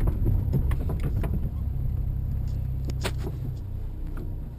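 Daewoo Nexia 1.6 manual car driving, heard from inside the cabin: a steady low engine and road hum with a few short knocks or clicks. The hum eases off near the end.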